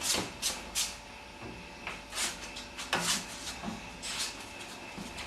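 Glass beer bottles clinking and knocking together and against the fridge as they are handled and put in, a dozen or so irregular clinks with a lull about a second in.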